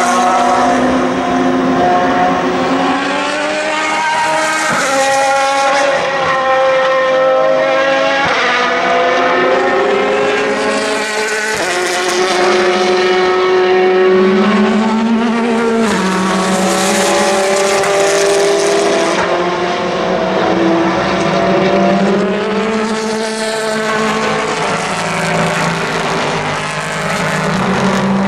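Engines of GT endurance race cars running hard through a curve one after another, several engines overlapping. Their pitch climbs and drops back repeatedly as they shift gears.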